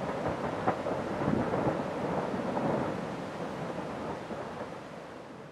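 Lava fountain spattering from Kilauea's west vent spatter cone: a steady rushing, rumbling noise that fades out toward the end.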